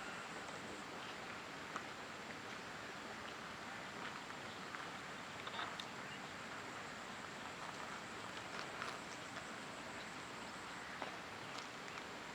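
Steady outdoor background hiss with a few faint, short ticks and chirps scattered through it.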